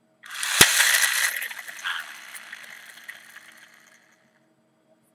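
Pull-back motor of a plastic Hot Wheels Happy Meal toy car whirring as it runs down, with a sharp click about half a second in. The whir is loudest at the start and fades out over about three and a half seconds.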